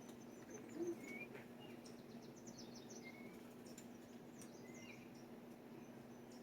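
Faint, scattered chirps and short squeaky calls of birds over a steady low hum, with a brief low thump about a second in.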